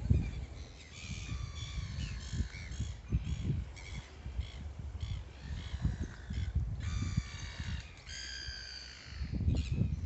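Gulls calling over and over in harsh squawks, several calls piling up near the end, over a low rumble.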